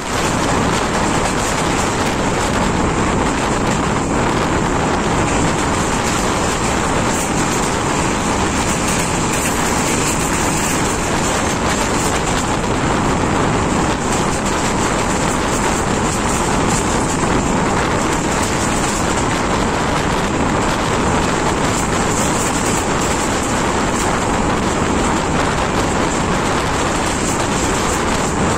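Steady running noise of an S14 diesel multiple unit at speed, heard from outside a carriage window: wheels on the rails and the rush of air past the train, with wind buffeting the microphone.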